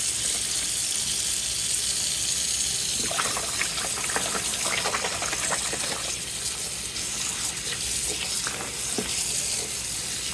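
Cold water running steadily from a tap into a sink or basin as it fills for another soak, with a few seconds of uneven splashing in the middle.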